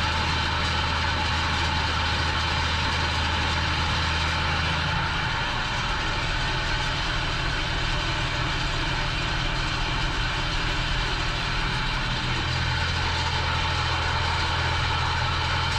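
Ford TW-20 tractor's six-cylinder diesel engine running steadily while pulling ring rolls over a field. Its low drone eases slightly for a few seconds midway, then returns.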